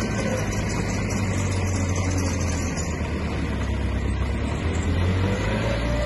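Heavy diesel engine of earthmoving machinery running steadily with a low hum, with a faint rising whine near the end.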